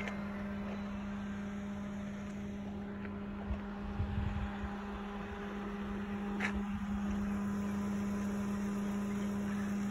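A steady low mechanical hum at one even pitch, like a motor running. A few soft thumps come around four seconds in, and a brief high chirp about six and a half seconds in.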